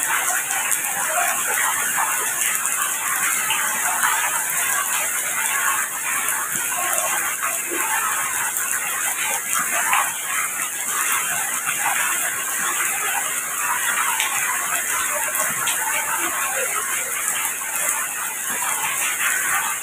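Steady rain falling, a dense irregular patter of drops over a constant hiss.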